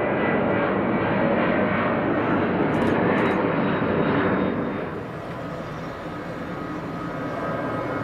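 Airliner engines running as a plane passes, a steady loud noise with high whining tones that drops off about four and a half seconds in and carries on more faintly.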